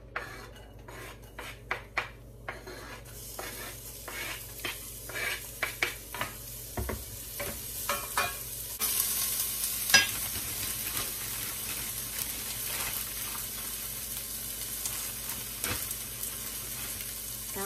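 Chopped red onion and garlic sizzling in hot oil in a stainless steel pan, with a wooden spatula scraping and tapping against the pan as they are pushed off the board and stirred. The sizzle builds and gets louder about nine seconds in, with one sharp knock of the spatula on the pan about ten seconds in.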